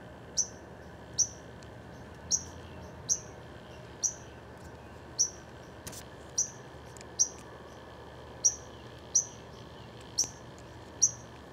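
A bird repeating a short, high, slightly falling chirp about once a second, a dozen times, over a faint steady background. A single faint click about six seconds in.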